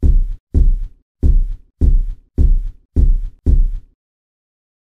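A series of deep, booming thumps, about one every 0.6 seconds, seven in all, each dying away quickly; they stop abruptly near the end.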